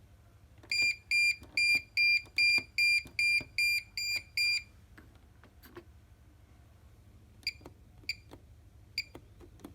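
Bosch washing machine's control panel beeping: a quick run of about ten identical high beeps, then a few short single click-pips as buttons are pressed.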